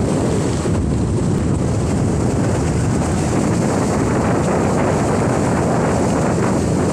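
Motorized outrigger boat under way: its engine running steadily, mixed with wind buffeting the microphone.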